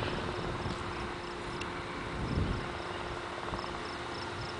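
A cricket chirping in short, evenly spaced high pulses, about three a second, over steady outdoor background noise and a faint hum. A brief low rumble comes about two seconds in.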